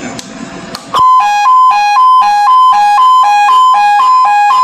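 Electronic sounder of an industrial strobe-light alarm beacon sounding a loud two-tone alarm, alternating between a higher and a lower tone about every quarter second. It starts about a second in, after a low hiss and a few handling clicks.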